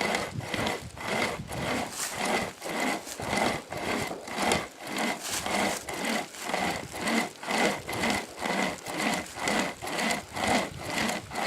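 Sportsman pocket chainsaw, a hand-pulled chain with a handle at each end, rasping through an oak trunk in steady back-and-forth strokes, about two a second.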